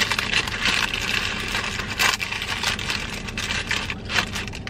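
Paper fast-food bag crinkling and rustling as it is handled and set down, with many small crackles. A faint steady hum from the car's air conditioning runs underneath.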